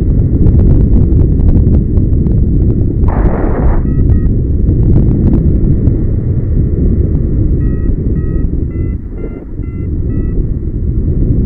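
Heavy wind buffeting the microphone in paraglider flight, with a variometer giving short beeps: a pair about four seconds in and a run of about six, half a second apart, near the end, the tones that signal the glider is climbing. A brief louder rush of air comes about three seconds in.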